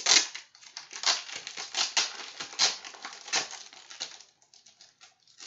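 Clear plastic sleeve crinkling and crackling as hands slide a card out of it, a dense run of crackles that thins to a few faint clicks about four seconds in.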